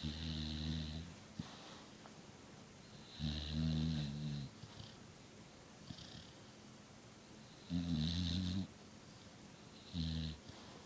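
American Bulldog snoring in her sleep: four snores, each about a second long and roughly three seconds apart, the last one shorter.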